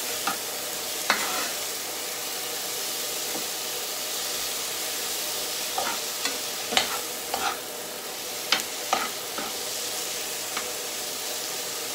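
Prawns, onion and tomato sizzling steadily in a frying pan as they sauté, while a metal spoon stirs them and clinks sharply against the pan a number of times, more often in the second half.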